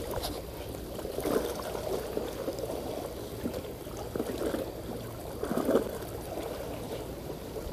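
Water sloshing and trickling unevenly, with a few louder swells.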